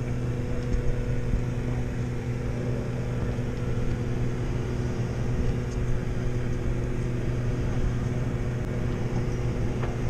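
Sailing yacht's engine running at a steady speed, an even drone with an unchanging pitch, over a background hiss.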